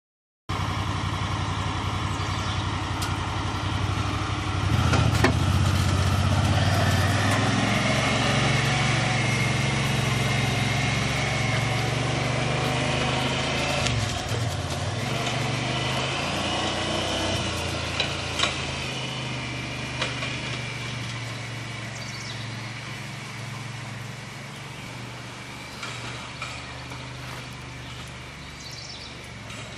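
Honda Pioneer 1000 utility vehicle's engine running steadily while pulling a log on a logging arch. It is loudest about five seconds in, with a brief dip in pitch midway, and it fades slowly over the last third. A few sharp knocks sound along the way.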